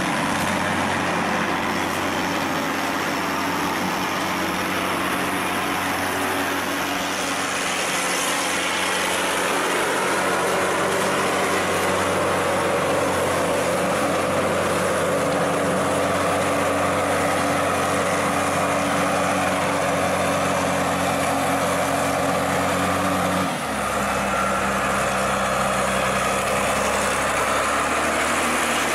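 Wheel loader's diesel engine running steadily under load as it works loose earth, with an abrupt change in its engine note about three-quarters of the way through.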